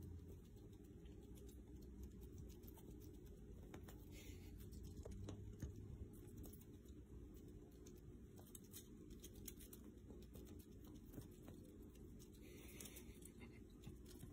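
Near silence over a low steady hum, with faint scattered scratches and rustles of a cat moving against fabric couch upholstery, a little louder about four seconds in and again near the end.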